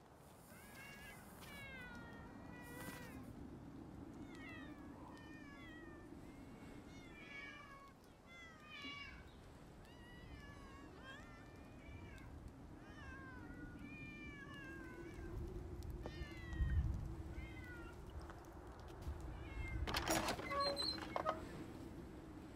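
Several cats meowing, many short falling calls one after another and sometimes overlapping, over a steady low hum. The calls thin out after about fifteen seconds; a brief low rumble follows, then a short noisy burst near the end.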